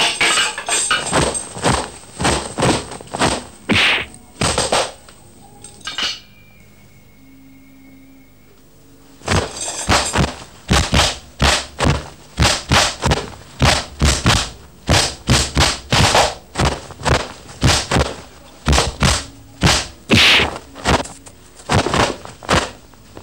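Staged martial-arts fight: a rapid run of sharp blows, thuds and clashes, two or three a second, some ringing brightly. They stop for about three seconds partway through, then start again.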